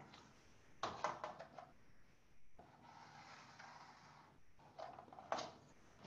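Faint scratching strokes of a pen drawing lines, the strongest about a second in and a few shorter ones near the end.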